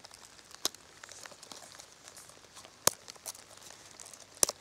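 Plastic carry clip of a Muela Kodiak knife's leather sheath being worked by hand, giving a few sharp clicks as it snaps and is shifted, the loudest about three seconds in and a double click near the end, over soft rustling of the leather being handled.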